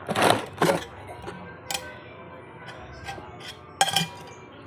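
A few sharp clicks and short rustling bursts, the loudest near the start and one near the end, over faint steady background tones.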